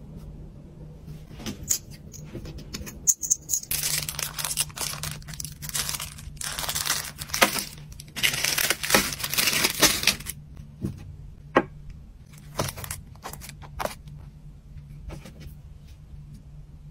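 Plastic-wrapped items crinkling as they are handled and laid out on a table, in two spells of rustling a couple of seconds long, with light clicks and taps of small items being set down. A low steady hum runs underneath.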